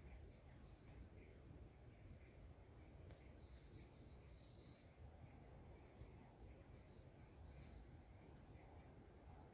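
Faint, steady, high-pitched insect call, unbroken until about eight seconds in, then breaking into short pieces.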